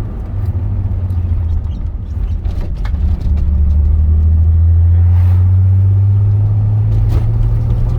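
Turbocharged VR6 engine droning inside the car's cabin on the move, a steady low note that drops a little about three seconds in, swells, then rises again near the end.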